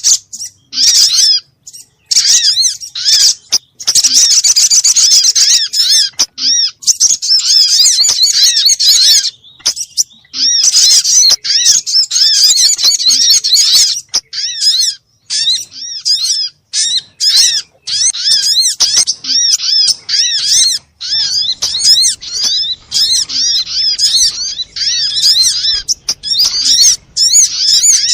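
Little spiderhunter (sogok ontong) calling in a rapid, nearly continuous chatter of short, high, arched chirps, broken by brief pauses. This is a bird-lure recording meant to provoke other birds of its kind to call.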